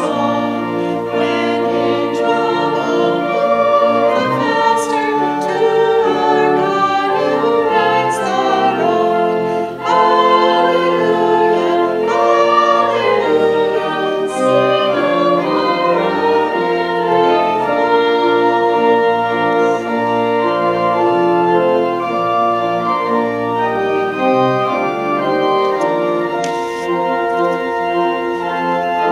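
Organ music: steady, full held chords that change every second or so.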